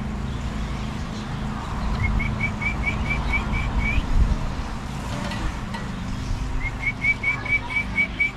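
A songbird singing two runs of quick, evenly spaced whistled notes, about four a second, each run ending on a rising note. A low steady rumble lies underneath.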